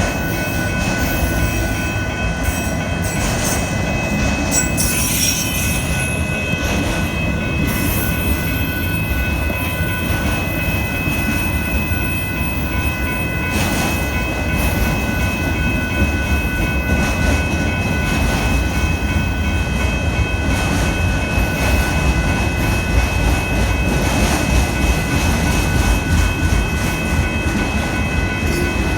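Union Pacific auto train of freight cars rolling past: a steady rumble of wheels on rail with scattered clicks, and a steady high ringing tone riding over it.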